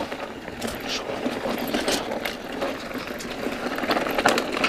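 Mountain bike rolling fast down a dirt trail, heard from a camera on the rider: tyres rumbling over wet dirt and stones, with the bike rattling in many quick clicks and knocks over the bumps.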